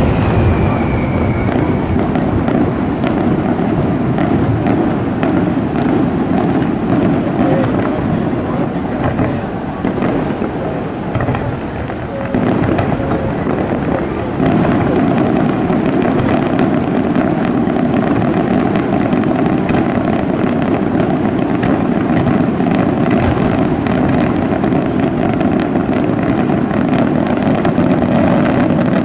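Pirotecnia Peñarroja fireworks display: a dense, continuous barrage of bursts and bangs, with a whistle falling slightly in pitch in the first two seconds. The barrage eases a little about ten seconds in, then picks up again a few seconds later.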